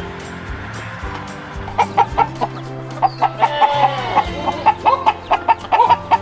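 Chickens clucking in quick short notes from about two seconds in, with one longer falling call about three seconds in.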